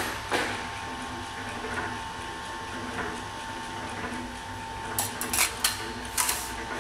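John Heine 118B sheet-metal guillotine shear standing with a steady electric hum, one held tone over a low rumble. A cluster of sharp metallic clicks and knocks comes about five seconds in, and a few more about a second later.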